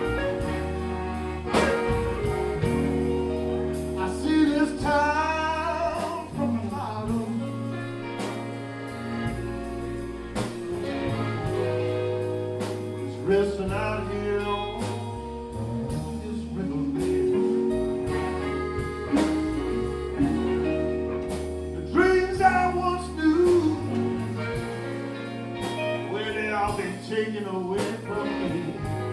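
Live band playing a song: a voice singing over a steady drum beat and sustained instrumental chords.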